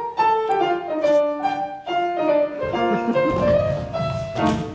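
Instrumental music led by piano, playing a lead-in of moving chords and melody to a show song.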